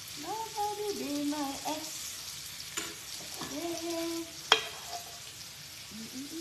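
Food sizzling on a stovetop griddle while a metal spoon scrapes and knocks against a nonstick frying pan, scraping scrambled eggs out. There is a sharp clink about four and a half seconds in.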